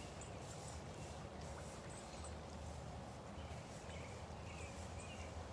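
Faint songbirds chirping now and then, a few short calls near the start and again about four to five seconds in, over a low steady outdoor background.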